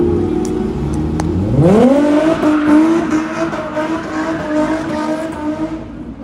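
Car engine revved up sharply about a second and a half in, held at high revs with exhaust noise for around four seconds, then dropping away near the end.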